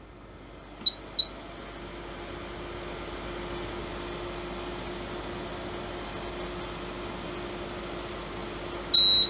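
Agilent E3633A bench power supply's beeper giving two short high beeps about a second in, over a steady hum that builds up over the next few seconds. Near the end the beeper starts a set of three louder beeps as the output is switched on: the supply is going into error mode.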